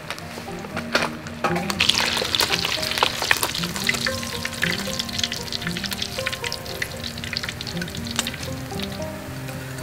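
Small whole fish frying in hot oil in a metal wok, sizzling and crackling, with sharp clicks of a metal spatula against the pan as the fish are turned and lifted; the crackle is strongest from about two to four seconds in. Light background music with sustained notes plays underneath.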